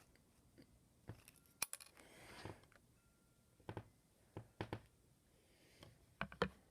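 Scattered small clicks and taps from handling a smartphone's SIM card tray, pulled out with an ejector tool, with a brief rustle in between. The sharpest click comes a little under two seconds in.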